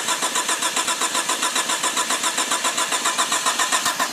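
Starter motor cranking a 1998 Chevy Tracker's 1.6-litre 16-valve four-cylinder engine in an even, rapid rhythm. The engine turns over but never fires.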